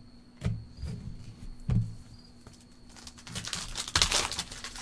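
A few soft thumps of trading cards and packs being handled on a table, then, about three seconds in, the crinkling of a foil card-pack wrapper being torn open.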